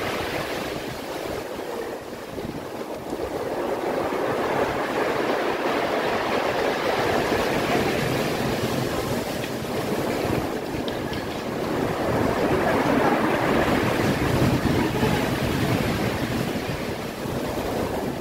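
Sea surf washing in along the shore, an even rushing noise that swells and eases as the waves come and go.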